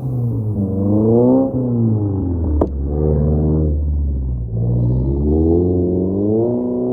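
Straight-piped, tuned Subaru WRX turbocharged flat-four engine revving up and down several times under changing throttle, with a single sharp crack about two and a half seconds in.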